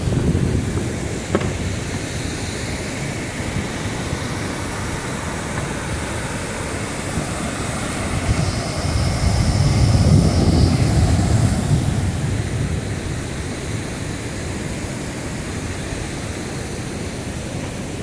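Steady rushing water of the Cachoeira do Urubu waterfall pouring over rock ledges, growing louder about halfway through and then easing back.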